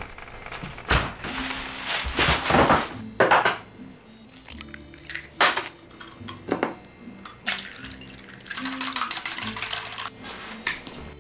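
Kitchen clatter of pots, pans and utensils, a string of sharp knocks and clanks, over background music with steady low notes; a rushing noise runs for about two seconds near the end.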